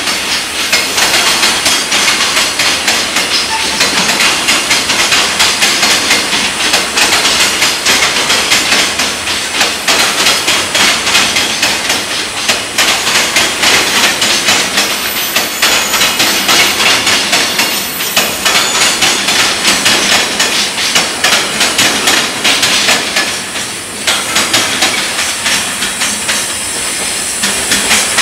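Long container freight train passing close by, its wagon wheels clattering rapidly over the rail joints in a dense run of metallic clicks. The clatter thins a little near the end as the last wagons go by.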